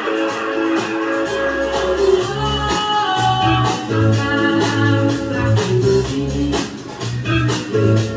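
Music with guitar and a steady beat; a deep bass line comes in about a second in.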